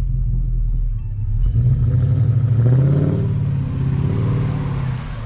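Jeep Grand Cherokee's engine pulling hard in deep snow, steady at first, then revving up and down from about a second and a half in as the vehicle struggles for grip.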